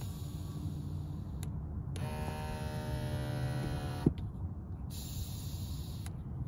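Small electric seat motor in a 1994 Ford F-150 Lightning's cab humming steadily, powered with the key out of the ignition. A whining tone rides over the hum from about two to four seconds in, and a sharp click comes near four seconds.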